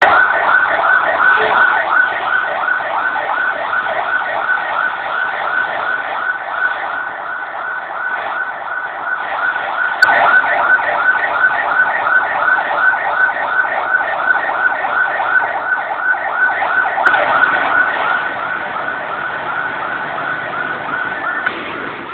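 Emergency-vehicle siren on a fast yelp: quick rising sweeps about three times a second, loud and unbroken, with two sharp clicks midway. The sound is thin and cut off at the top, as recorded on an old Nokia phone.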